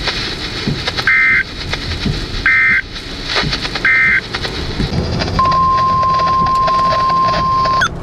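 Weather radio alert audio: three short, shrill bursts of EAS/SAME digital data tones about a second apart, then, about five seconds in, a single steady alarm tone of the weather radio warning type that holds until it cuts off just before the end, over a car's low running noise.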